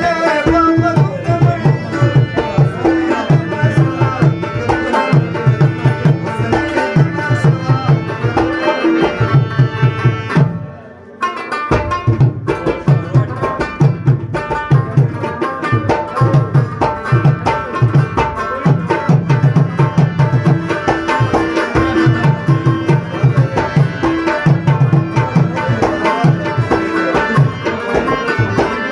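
South Asian folk ensemble playing an instrumental passage: a harmonium holds chords while a rubab plucks the melody over a steady tabla rhythm. About ten seconds in the music stops for about a second, then starts again.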